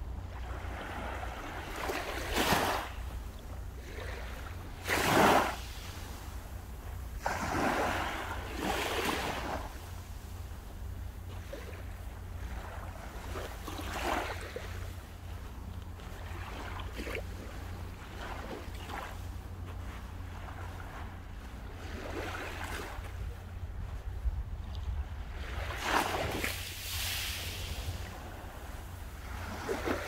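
Small sea waves breaking and washing up the shore in several separate surges, the loudest about five seconds in, over a steady low rumble of wind on the microphone.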